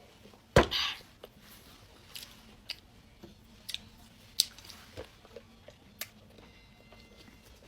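A person biting and chewing bread close to the microphone. There is one sharp, loud bite about half a second in, then scattered soft clicks of chewing.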